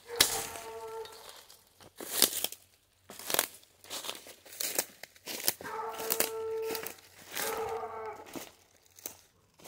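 Rustling and crunching in uneven bursts as the phone rubs against clothing and the walker pushes through dry undergrowth. A hunting hound bays three times, each bay a held, steady note about a second long: once near the start, then around six and seven and a half seconds in.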